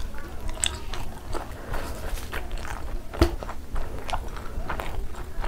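Close-miked mukbang eating: a person biting into and chewing dumplings, with a run of wet mouth clicks and smacks. There is one louder, sharper knock about three seconds in.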